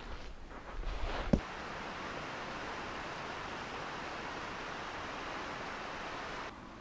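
A steady, even rushing noise that starts abruptly after a sharp click about a second and a half in and cuts off suddenly near the end. Before it, a low rumble.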